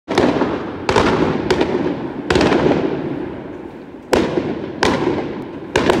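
Aerial fireworks bursting overhead: about eight sharp bangs at uneven intervals, each trailing off in a fading crackle, with two bangs close together near the end.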